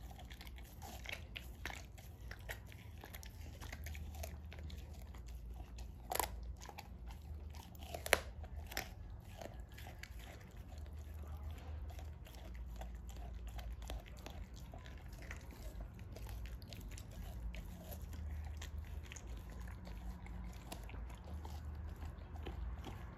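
American bulldog chewing raw meat, biting and crunching through it rather than licking it, with wet clicks throughout. Two louder sharp cracks come about six and eight seconds in.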